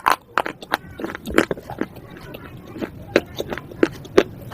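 Crunching of slate pieces being bitten and chewed: a quick, irregular run of sharp, brittle cracks.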